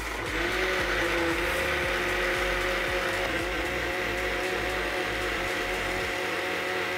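Bajaj NX01 mixer grinder's motor blending a fruit smoothie of melon, milk and coconut water in its personal jar: a steady, even whine that spins up in the first half second.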